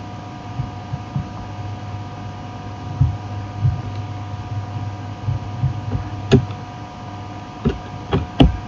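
Steady electrical hum on the recording, with a few soft low thumps, then several sharp computer clicks in the last few seconds as a text field is selected and cleared.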